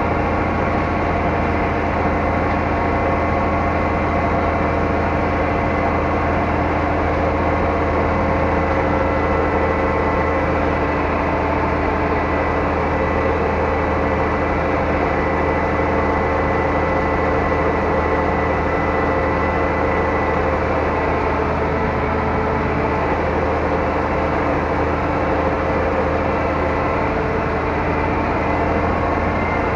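Zetor 12145 tractor's six-cylinder diesel engine running steadily under load while dragging a field leveller, heard inside the cab. It is a deep, even drone with a thin, steady whine above it.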